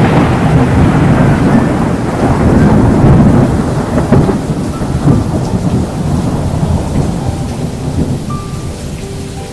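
Loud low rumble of a motorcycle being ridden along a wet road, fading gradually; a few soft musical notes come in near the end.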